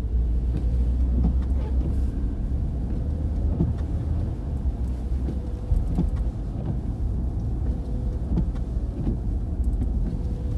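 Road noise inside a moving car's cabin: a steady low rumble from the engine and tyres, with a faint steady hum and a few light clicks.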